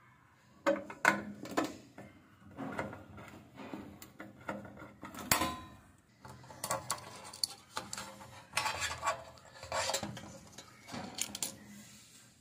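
Screwdriver turning out screws on a window air conditioner's sheet-metal control box, with irregular metallic clinks and clatters in short clusters as the panel and the capacitor clamp are loosened and handled.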